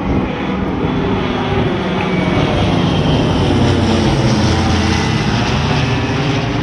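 Aircraft engine drone as a plane flies past, swelling to its loudest about halfway through and then easing slightly.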